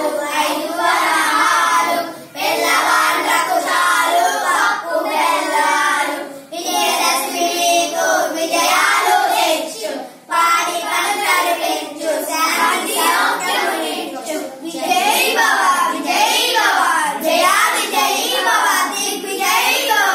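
A small group of children singing an English song together in unison, phrase by phrase, with short breaths between lines.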